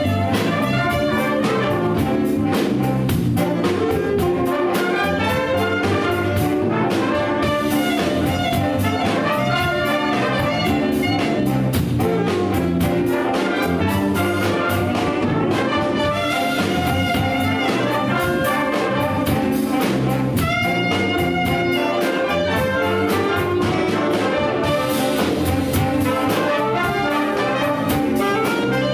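Big band playing a jazz chart live, trumpets and trombones to the fore over drums and cymbals.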